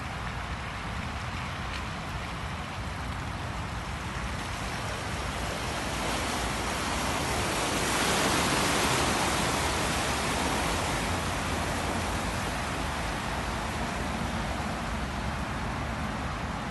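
Snorkel-equipped VW Amarok pickup wading through deep muddy floodwater, the water rushing and splashing around it. The water noise swells to its loudest about halfway through as the truck pushes through the deepest part, over a low steady rumble.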